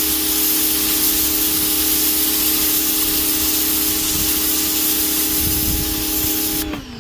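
PowRyte 3800R electric pressure washer spraying a 0-degree jet onto pavement: a loud steady hiss of water over the motor and pump's steady humming whine. Shortly before the end the spray cuts off and the motor's pitch drops as it stops.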